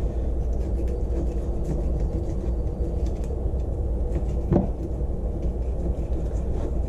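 Fillet knife drawn along a fish's backbone, giving faint scattered clicks and scrapes, one sharper click about four and a half seconds in, over a steady low rumble.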